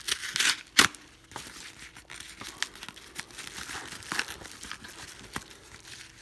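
Padded kraft bubble mailer crinkling and rustling as it is handled and opened, with a sharp snap a little under a second in and further paper crinkles around four seconds in.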